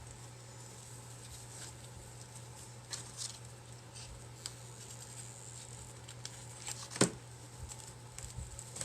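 Soft handling noises of rope being wrapped and glued around a small clay pot: light rustles and scattered clicks, with one sharper click about seven seconds in, over a steady low hum.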